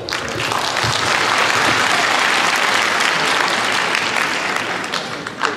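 An audience applauding in a hall, the clapping swelling in the first second, holding steady, then fading near the end.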